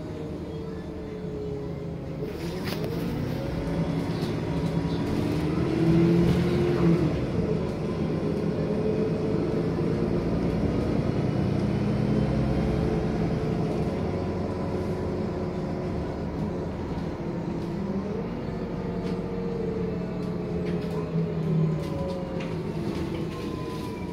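City bus engine and drivetrain running while the bus drives, heard from inside the passenger cabin. Its pitch rises about two seconds in and again later on, then falls near the end.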